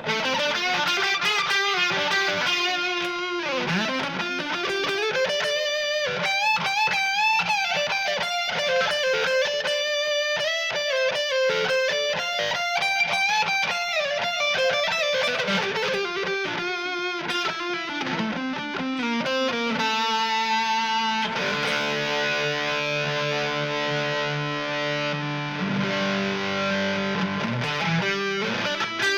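Electric guitar played through a TC Electronic Flashback X4 delay pedal: single-note lead lines with bends and glides, giving way about twenty seconds in to sustained chords.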